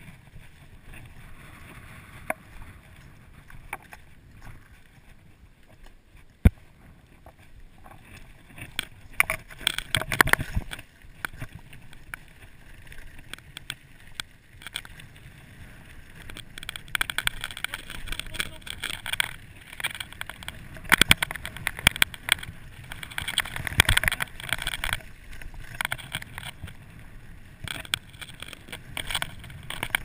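Mountain bike rolling over a gravel track: tyres crunching on loose stones, with rattles and sharp knocks from the bike over bumps. It is fairly quiet at first, then gets busier and louder from about a third of the way in.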